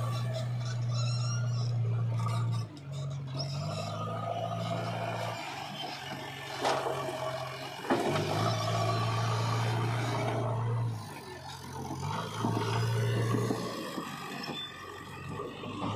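JCB 3DX backhoe loader's diesel engine running under load, its pitch stepping up and down as the loader arm works. Two sharp knocks about seven and eight seconds in as the bucket dumps soil into a tractor trolley.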